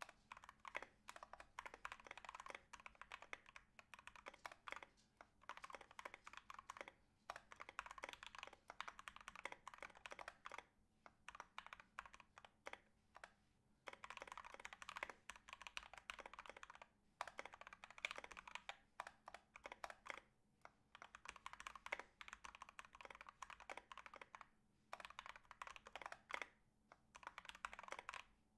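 Continuous typing on a Drop Carina 60% mechanical keyboard with lubed and filmed Banana Split linear switches, a brass plate and MT3 ABS keycaps: quick runs of key presses broken by short pauses every few seconds. The clipped and lubed stock stabilizers are, in the uploader's view, still rattly.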